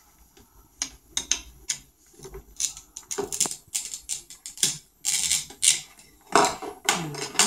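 Plastic toy knife tapping and clicking against a toy plastic potato and a plastic cutting board: a run of light, irregular taps, with a couple of longer rasping noises in the second half.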